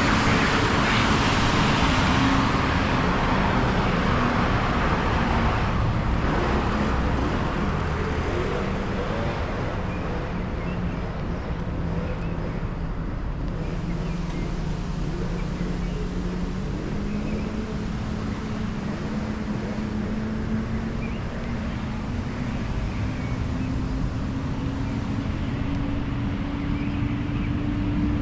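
Street traffic: a car passes close by in the first few seconds, then a vehicle engine keeps running with a hum that slowly rises in pitch.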